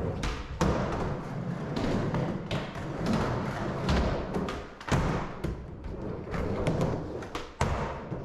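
Skateboard wheels rolling on a smooth ramp floor, broken every second or two by the sharp clack of the tail popping and the thud of the board and feet landing.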